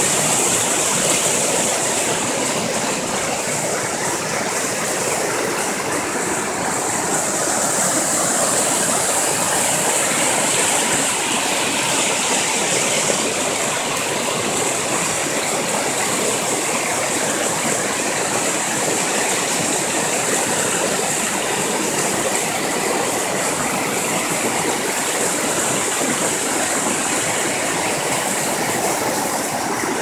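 A shallow waterfall: white water rushing down smooth rock slabs, a steady loud rush with no breaks.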